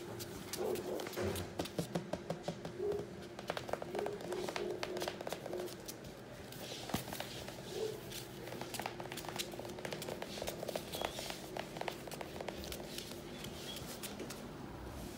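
A puppy's claws tapping and scratching on a hard plank floor as it toddles about: a scatter of small, quick clicks, over a steady low hum.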